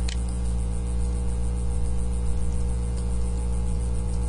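Steady electrical mains hum with hiss, a low buzz that holds level throughout. A faint click comes just after the start.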